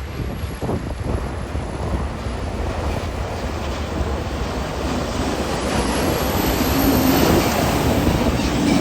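A tour bus's engine running, with a steady rumble and hiss that grows louder over the last few seconds.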